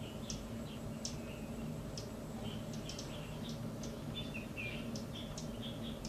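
Many short, high chirps from small birds, scattered irregularly, over a steady low hum.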